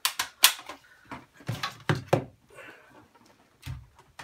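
Hard plastic clicks and knocks of laptop parts being handled: a laptop battery being unclipped and taken out, with several sharp clicks in the first two seconds and a duller thump near the end as the battery is laid on the desk.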